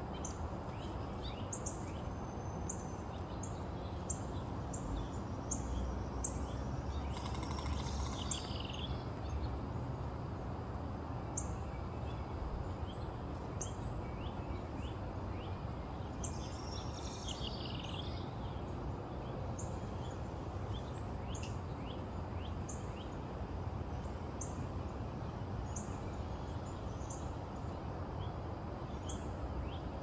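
Outdoor ambience of small birds chirping, with short high chirps repeating every second or so over a steady low rumble. A brief high hiss comes about seven seconds in, and a louder, brighter bird call around sixteen to eighteen seconds.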